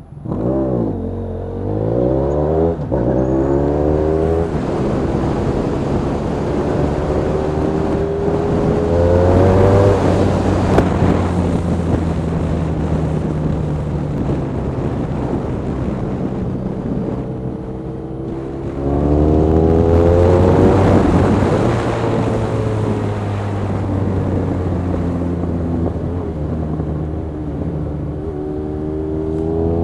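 Honda VFR1200F's V4 engine through a straight-through exhaust pipe, pulling through the gears: the pitch rises in each gear and drops back at each change. There are several bursts of acceleration, the hardest about ten seconds in and again around twenty seconds in.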